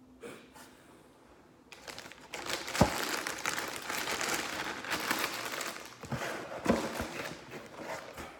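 Clear plastic bag crinkling and rustling as a spinning reel is handled inside it, starting a little under two seconds in, with a couple of dull knocks along the way, the first the loudest.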